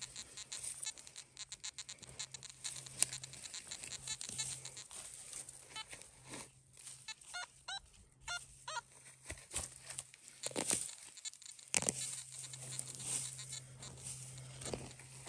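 Hand digging tool chopping and scraping into dry soil. In the middle stretch a Nokta Makro Simplex metal detector gives a quick series of short beeps as its coil sweeps over the hole, signalling the target, and then the digging resumes.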